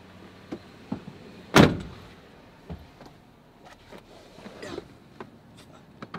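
A car door shutting with a single heavy thud about a second and a half in, among a few smaller knocks and clicks.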